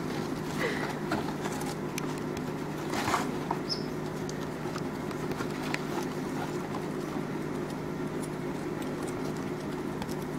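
Pet rats scrabbling over a cardboard box and through shredded paper: scattered light claw clicks and scratches on the cardboard, with a brief rustle of paper about three seconds in. A steady low hum runs underneath.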